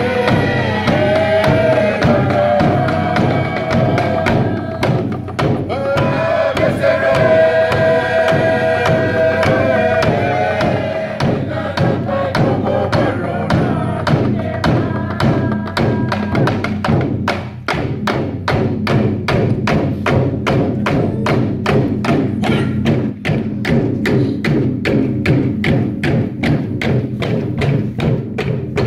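Group chant-singing with wooden drums beating for a traditional island dance. The singing fades out past the middle, leaving a fast, steady drumbeat from about two-thirds of the way in.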